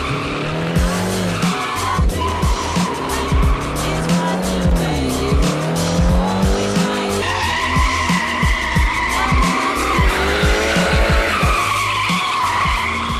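A drift car's engine revving up and down through the slides while its tyres squeal, with music underneath.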